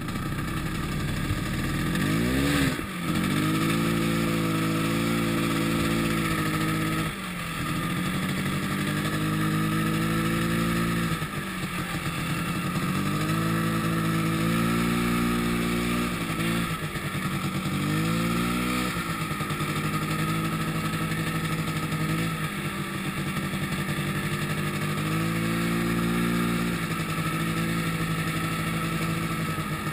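Yamaha snowmobile engine running hard through deep snow. Its pitch rises and falls every few seconds as the throttle is eased off and opened again. A steady hiss runs behind it.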